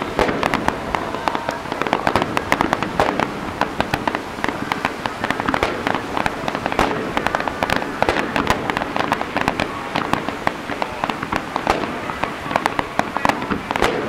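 Fireworks finale barrage: aerial shells bursting in rapid succession, many sharp bangs a second overlapping with no pause.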